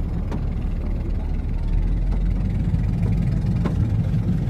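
Speedboat engine running steadily, a constant low drone.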